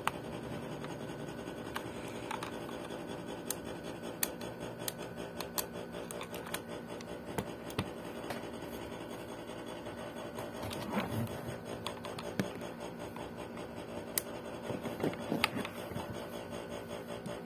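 Scattered light clicks and scratches of a plastic Chevrolet Camaro SS toy car being handled and moved on a surface, over a steady faint hum.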